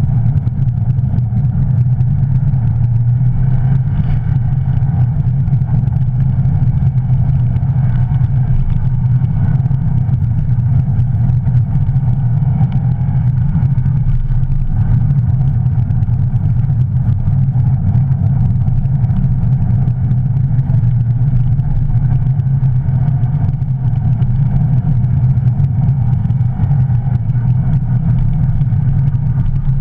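Car engine running steadily under load as a rally car on studded tyres drives over snow-covered lake ice, heard from inside its cabin, with the drone of road and tyre noise underneath.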